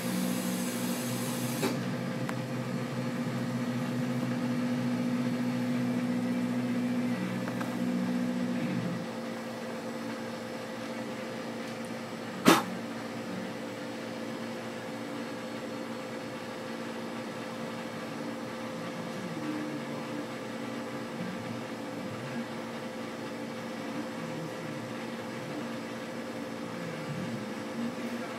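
A steady low hum with a few held low tones for about the first nine seconds, then quieter steady room hum, broken by one sharp click about twelve seconds in.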